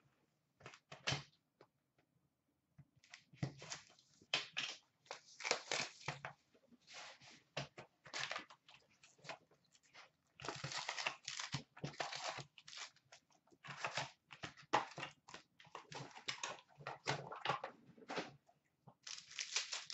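A cardboard trading-card box being opened and its foil-wrapped card packs pulled out and stacked: repeated bouts of tearing, rustling and crinkling, with short pauses between them.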